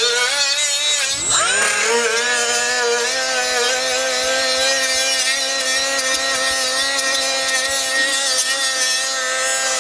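Milwaukee cordless rotary tool with a red abrasive disc running at high speed, grinding old RTV sealant off the flange of a transmission pan. Its steady whine dips and spins back up about a second in, then holds an even pitch.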